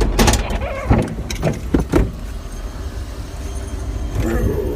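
A vehicle's engine running with a low, steady rumble, with several sharp clicks and knocks in the first two seconds.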